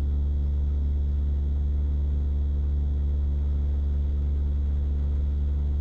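Steady low drone inside a car's cabin with the engine running and the heater on, an even hum with several fixed tones that does not change.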